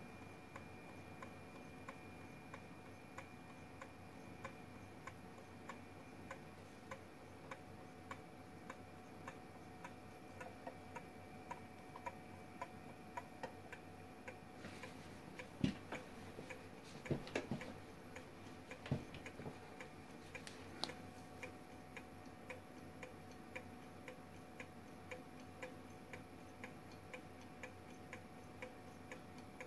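Low-temperature gamma Stirling engine running on a cup of hot water, its crank and piston mechanism ticking steadily about once every half second. A few louder knocks come in the middle as the engine is gripped and turned on the mug.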